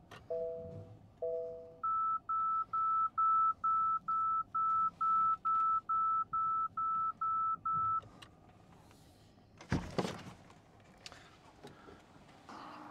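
Electronic telephone-style tones. First come two short low beeps, each two notes sounding together. Then about fifteen short high beeps follow at a steady rate of roughly two and a half a second, and a brief noisy thump comes about ten seconds in.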